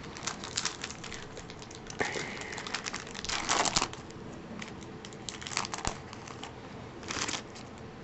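Foil wrapper of a trading card pack crinkling, with small clicks as cards are handled, in irregular bursts; the loudest comes about halfway through.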